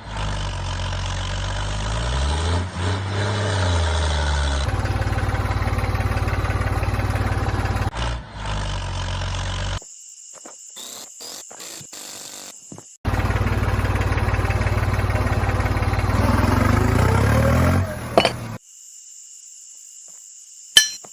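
Small motor running in spells, its pitch rising and falling, with a fast buzzing rhythm; it stops for a few seconds in the middle, with only clicks, then runs again and stops near the end.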